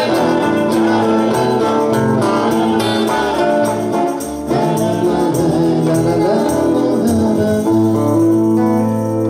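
Live acoustic band playing a song passage between sung lines: strummed acoustic guitars, electric bass and keyboard, with a steady strummed rhythm.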